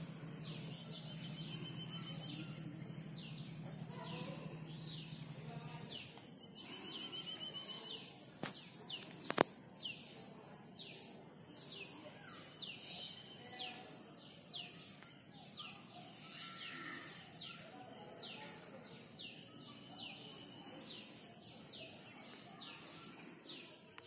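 A bird calling over and over in short, high, downward-sliding notes, about one or two a second, over a steady high-pitched insect drone. A single sharp click about nine seconds in.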